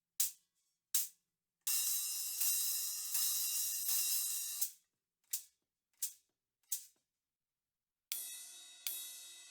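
Low-volume cymbals picked up by a single condenser microphone. Short, clipped strokes give way about two seconds in to a sustained wash of about three seconds. A few more short strokes follow, then from about eight seconds in, ringing cymbal strikes come roughly every three-quarters of a second.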